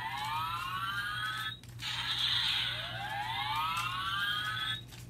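Power Rangers Ninja Steel deluxe battle morpher toy playing its electronic sound effect through its small speaker: a hissing whoosh with rising pitch sweeps. The sweep cuts off about one and a half seconds in, then starts again and runs about three seconds.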